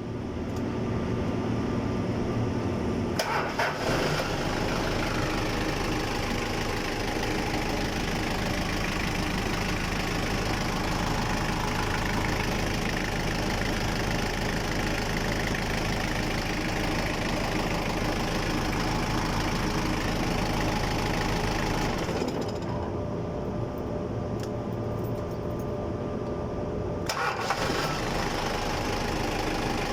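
Diesel forklift engine starting and running steadily, its glow plugs now fed through a newly wired relay and timer to cure the hard starting. About three seconds in the sound grows fuller. Around 22 seconds the upper part drops away for about five seconds, then returns.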